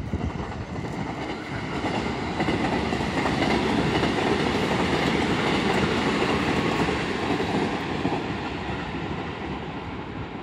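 JR Central 313 series electric train running past on the Tokaido Line. The noise swells over the first couple of seconds, holds steady and loud through the middle, then fades near the end as the train moves away.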